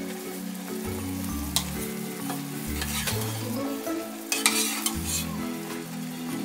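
Broccoli stirred in a pot of boiling water, the water bubbling and hissing with scattered clinks and a louder hissing burst about four seconds in.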